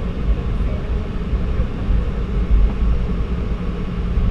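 Cabin noise of a Boeing 717-200 taxiing: a steady low rumble from its rear-mounted Rolls-Royce BR715 turbofans at taxi power, with a faint steady hum over it.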